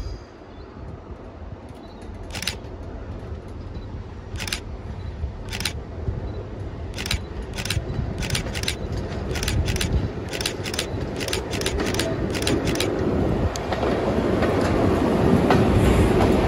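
A Class 90 electric locomotive approaching and running past at low speed, its rumble and rush rising steadily as it nears. Between a few seconds in and about two thirds through, a series of sharp, irregular clicks comes as its wheels cross the pointwork.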